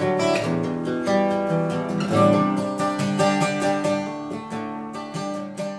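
Small-bodied acoustic guitar played in a steady run of plucked notes and chords, beginning to fade out near the end.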